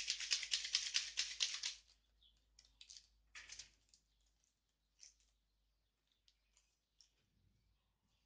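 A small sachet of vitamin C powder shaken hard for about two seconds in a fast pulsing rustle. Two shorter crinkles of the packet follow a second later, then light clicks and ticks as it is opened.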